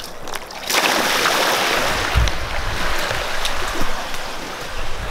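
A rush of water pouring out of an inflatable paddling pool as it is emptied, starting suddenly a little under a second in and running on as a loud, steady gush, with a few low thumps about two seconds in.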